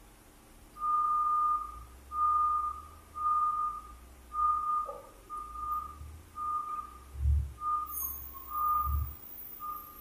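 A warning beeper sounding a series of short beeps on one steady high pitch, about one a second, with two low thuds in the second half.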